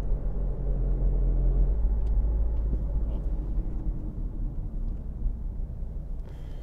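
Steady low rumble of a car in motion, heard from inside the cabin: engine and road drone.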